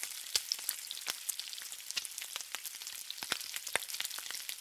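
Food frying on a hot flat-top griddle: a steady sizzling hiss with frequent sharp crackling pops.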